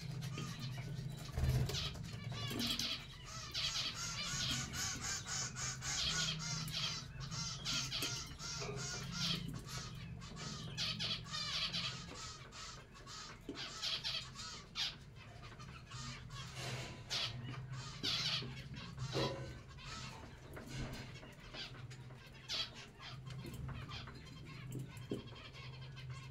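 Budgerigars chattering and warbling continuously, a busy run of wavering chirps and short clicks, over a steady low hum.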